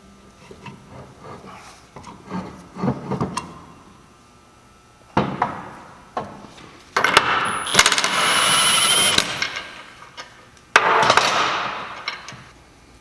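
Hand tools and metal parts clinking and clattering during the final assembly of a differential: several knocks, a sharp metallic hit about five seconds in, then a louder sustained stretch of tool noise lasting about two seconds, and another hit that rings away.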